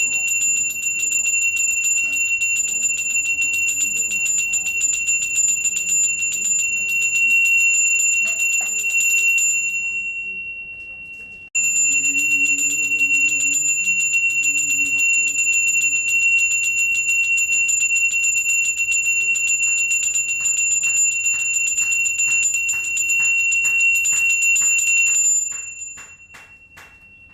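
A small hand bell rung very fast and continuously with one steady high ring, typical of the genta bell a Balinese priest rings during temple prayers. Near the middle it stops for a second or two, then starts again. Near the end the strokes slow to separate strikes and the ringing fades out.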